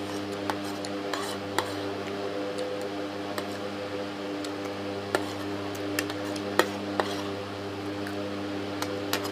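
Metal spoon clinking and scraping against a ceramic plate as food is scooped up, a string of sharp clicks, the loudest about two-thirds of the way in, over a steady low hum.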